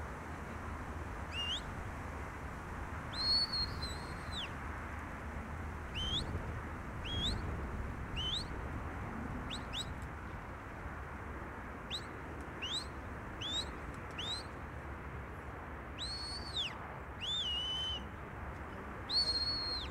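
Sheepdog handler's whistle commands to a working border collie: runs of short, quickly rising whistles, and several longer whistles that rise, hold a steady note and drop away, the last one near the end.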